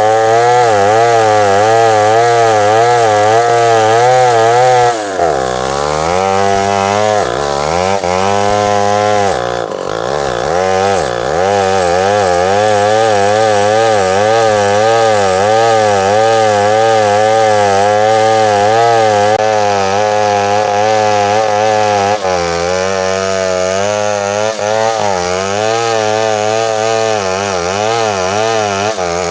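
Chainsaw running at high revs, cutting into a large tree, its pitch wavering steadily. About five and ten seconds in, the engine note drops sharply and recovers, as the saw bogs under load.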